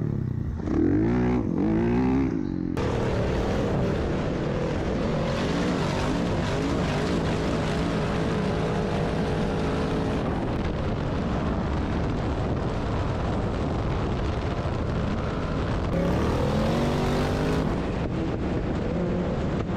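Off-road vehicle engines revving in several cut-together shots. An engine revs up and down in the first few seconds, then after a sudden cut engines run more steadily. Another rise-and-fall rev comes at about sixteen seconds.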